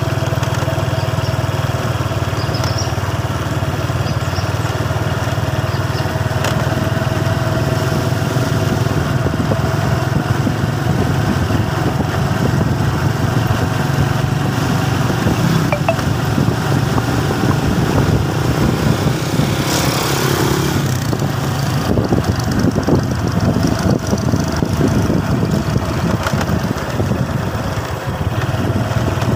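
Small motorcycle engine running steadily while riding along at an even speed, with a constant rush of air and road noise. A brief louder rush of noise comes about twenty seconds in.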